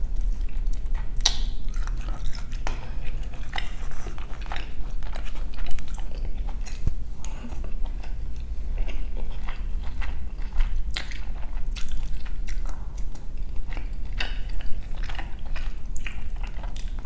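A person chewing and biting food, with many short irregular clicks from the mouth.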